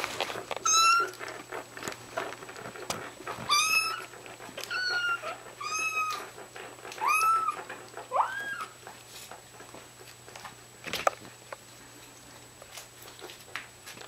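Young kittens mewing: about six short, high-pitched calls over the first nine seconds, the last one rising in pitch. A single sharp tap follows about eleven seconds in.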